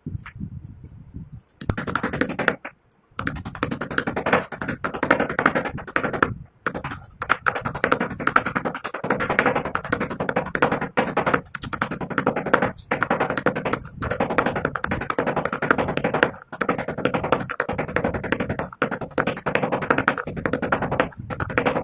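Pieces of baked clay being pounded and crushed with a pestle in a stone mortar: a dense run of rapid crunching and clicking that starts about a second and a half in and stops briefly twice.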